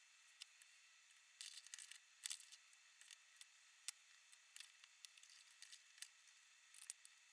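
Faint, scattered clicks and light handling noise from hands moving small plastic parts, tools and plastic bags on a desk, with a quick run of clicks about a second and a half in.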